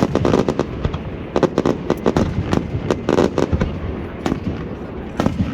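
Aerial fireworks going off in a display: many sharp bangs and reports in quick clusters, thinning out after about four seconds.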